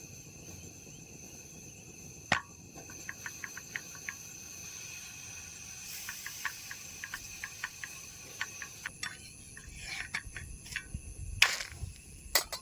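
Crickets or other insects chirring steadily in several high pitches, with a fresh high chirr joining about three-quarters of the way through. Over them are a sharp click, runs of light rapid ticks and taps, and two louder knocks near the end.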